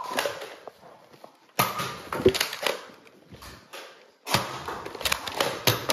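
Two bursts of rustling, thumping and sharp clicks, each a second or more long, from a handheld camera being jostled while its holder runs indoors.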